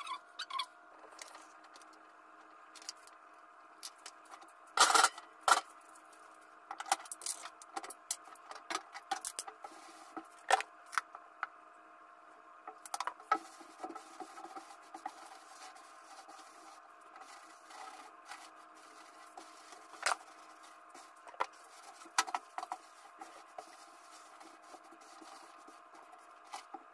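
Metal gas-stove grates being lifted off and set down: knocks and clatters, the loudest about five seconds in. Then a scouring sponge scrubs the greasy enamel stovetop in rubbing and scraping strokes. A faint steady hum runs underneath.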